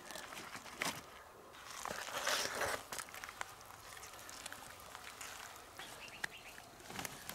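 Faint rustling and light clicks of hands handling fish in a nylon fish bag and keep nets, with a brief louder swell of rustle about two seconds in.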